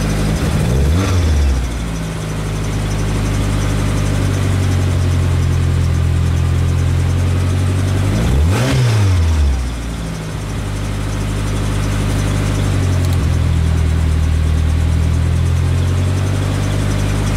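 Mitsubishi Eclipse GSX's turbocharged four-cylinder engine idling steadily, blipped twice: a quick rev rising and falling back about a second in and again about eight and a half seconds in.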